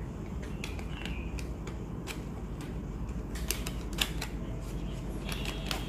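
Small clicks and taps of a camera lens and its lens protector being handled, scattered irregularly with a cluster near the middle and another near the end, over a steady low hum.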